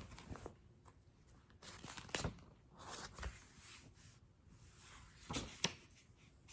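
Faint rustling of a picture book's paper pages being handled and turned, in a few short brushes and scrapes.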